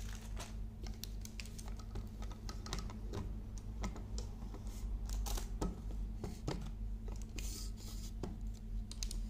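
Tripod 3120 camera tripod being unfolded by hand: irregular clicks and clacks of its legs and joints spreading and snapping into place, over a steady low hum.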